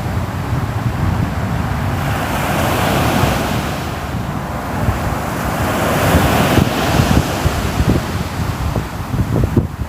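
Sea surf washing in continuously, swelling a little louder about three and six seconds in, with a low rumble of wind on the microphone.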